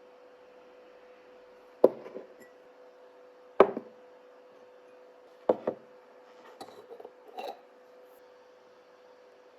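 Kitchenware being handled and knocked down on a hard surface: three sharp knocks a couple of seconds apart, then a few lighter clicks, over a steady hum.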